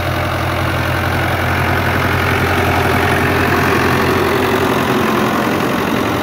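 Tractor engine running steadily as it pulls a peanut digger through the soil, lifting the plants; the sound swells a little in the middle.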